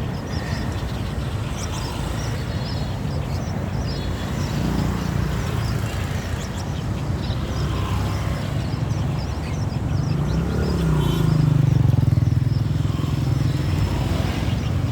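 Small birds chirping in quick, short calls over a steady low rumble of a motor vehicle engine, which rises in pitch and grows louder about ten to thirteen seconds in.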